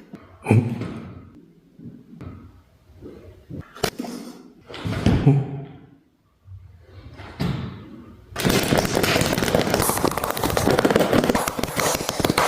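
Human beatboxing: a string of separate percussive mouth sounds, knocks and short noisy bursts. About two-thirds of the way in, a dense, continuous noisy sound starts and carries on.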